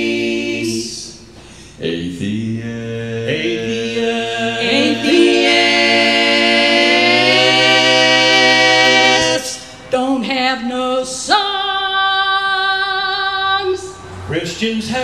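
Small mixed choir singing wordless close harmony, a cappella, in long held chords: one held for several seconds, then, after a short break, a second.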